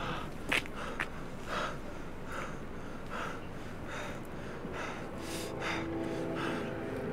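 A man panting hard, with gasping breaths a little under a second apart. Sustained music tones fade in about five seconds in.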